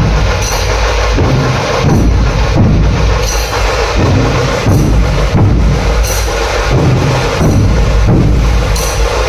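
Dhol tasha pathak drumming: large dhol barrel drums and tasha drums played together in a loud, dense, steady repeating rhythm.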